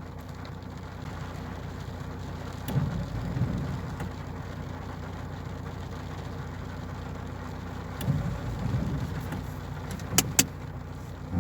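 Car engine idling steadily, heard from inside the stationary vehicle, with two sharp clicks near the end.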